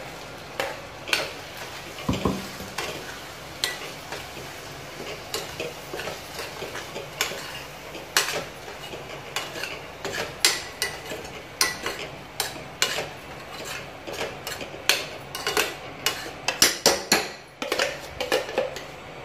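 Metal spoon stirring and scraping curry paste in a stainless steel kadai, with irregular clinks against the pan that come faster in the second half, over a low sizzle of the curry frying.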